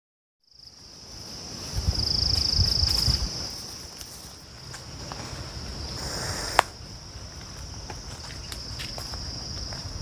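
Forest insects keep up a steady high-pitched drone, with a faster pulsing trill for about a second, two seconds in. Underneath is the low rumble of footsteps walking the trail, heaviest early on, and a single sharp click comes about six and a half seconds in.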